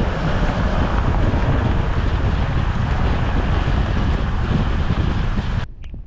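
Heavy wind buffeting the microphone of a moving car, a loud low rumble mixed with road noise. It cuts off suddenly near the end, leaving much quieter vehicle sound.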